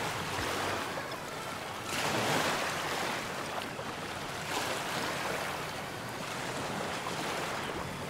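Rushing water and wind from a moving boat, swelling and easing every two seconds or so.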